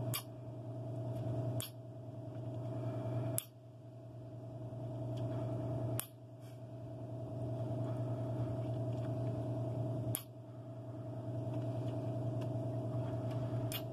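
Steady low electrical hum with a higher steady tone over it, broken by about six sharp clicks; after each click the hum drops and slowly swells back.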